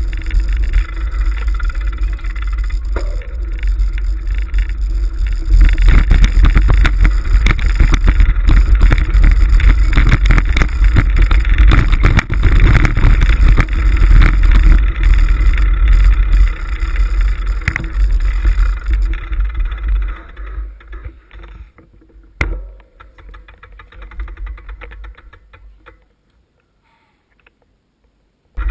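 Wind buffeting and rattling vibration on a mountain bike's handlebar-mounted action camera as the bike rides a rough dirt track. The noise dies away over the last several seconds and is almost silent near the end.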